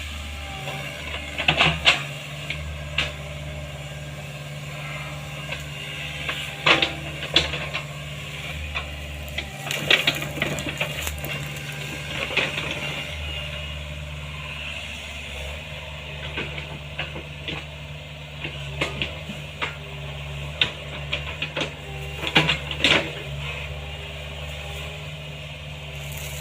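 Hydraulic excavator's diesel engine running steadily while it digs, with sharp metallic clanks and rattles at irregular intervals.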